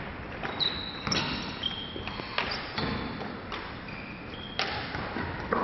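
Badminton rackets striking shuttlecocks, several sharp cracks at uneven intervals, with short high squeaks of sports shoes on the wooden court floor.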